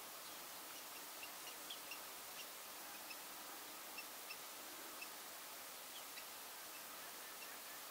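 Faint, steady hiss with short, high animal chirps scattered through it, one or two a second at irregular intervals.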